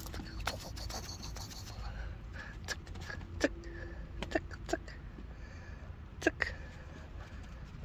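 A small puppy moving about in a wire dog crate: scattered light clicks and taps at irregular moments, over a low steady rumble.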